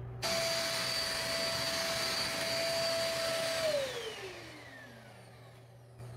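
JML eVAC bagless handheld vacuum cleaner switched on, its motor running with a steady high whine for about three and a half seconds, then switched off and winding down, the whine falling in pitch as it fades.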